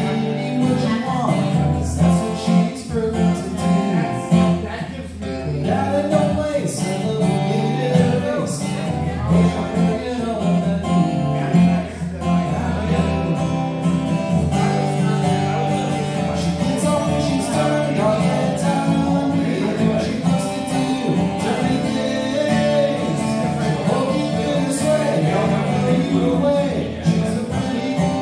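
A man singing to his own acoustic guitar in a live solo performance.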